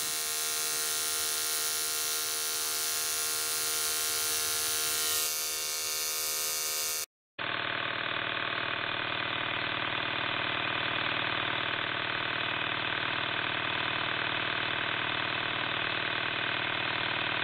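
Andis AGC Super 2-Speed clipper running steadily, a buzzing hum from its motor driving a freshly reassembled and oiled blade. The sound cuts out for a moment about seven seconds in and comes back duller.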